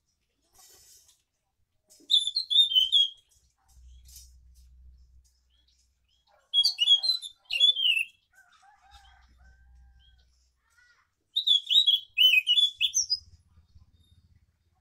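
Caged scaly thrush (anis macan) singing: three short bursts of quick, warbling high phrases, about four seconds apart.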